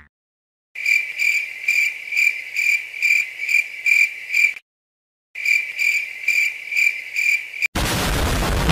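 Crickets chirping in a steady high trill, about three chirps a second, in two stretches with a short break between. Near the end a loud cartoon boing impact effect with a wobbling pitch cuts in.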